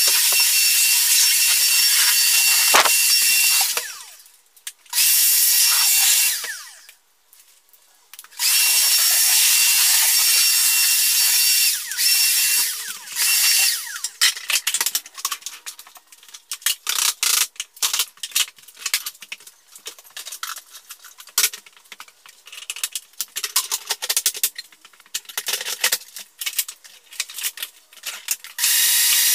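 Floor-sanding machine running with a steady high whine, cutting out twice in the first third, then stopping and starting in quick short bursts through the second half.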